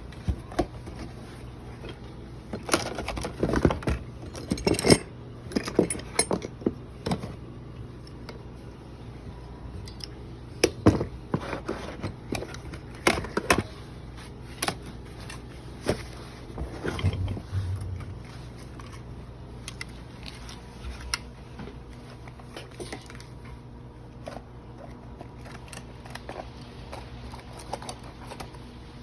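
Small hard objects being handled: irregular clicks, taps and light clattering, busiest in the first half and sparser later, over a steady low hum.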